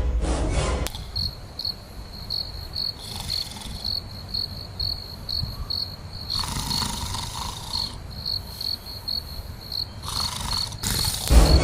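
Crickets chirping in a steady rhythm, about three chirps a second. A loud, low, noisy burst is heard at the start and another near the end.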